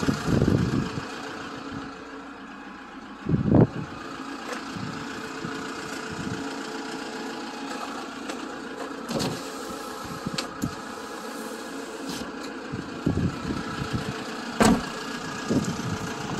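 A vehicle engine idling steadily. A loud thump comes about three and a half seconds in, another near the end, and a few sharp clicks in between.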